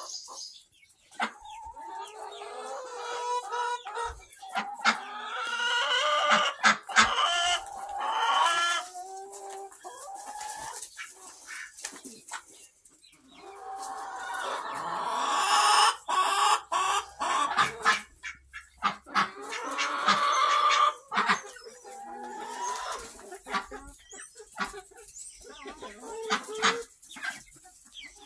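A flock of chickens clucking and calling, many birds at once and overlapping, growing louder a few seconds in and again in a dense stretch of calls around the middle.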